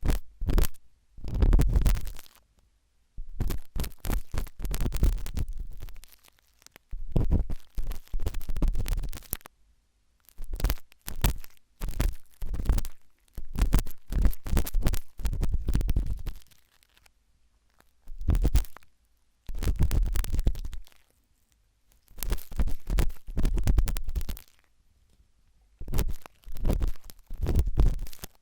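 Pointed wooden toothpick scratching and scraping in an ear, in crackly bursts of one to three seconds with short silent gaps between, with a dull low rumble under the scratching.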